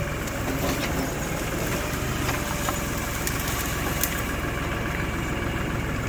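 LS compact tractor's diesel engine running steadily at a low idle, with a few faint clicks over it.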